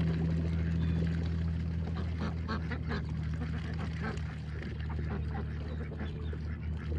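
A flock of domestic ducks quacking in a dense, overlapping chorus as they crowd in to be hand-fed, over a steady low hum.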